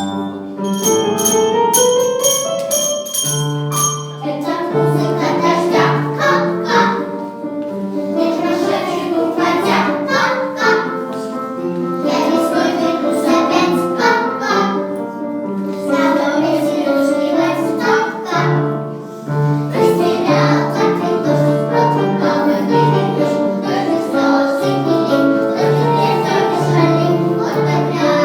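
Group of young kindergarten children singing a song together over instrumental accompaniment with a pulsing bass line. The first four seconds are a chiming, bell-like instrumental passage before the full singing comes in.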